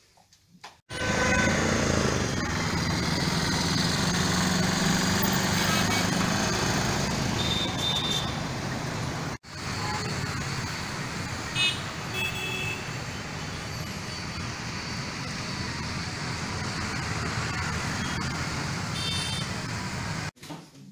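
Street traffic noise, a steady rush of passing vehicles with a few short horn honks. It breaks off for an instant about nine seconds in and then carries on.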